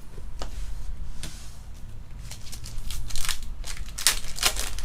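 Trading cards being flipped through and slid against one another, making a series of short papery swishes that come closer together and louder in the second half.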